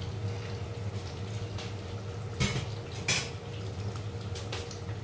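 A few sharp clinks of tea things, metal against ceramic, the two loudest about two and a half and three seconds in, over a steady low hum.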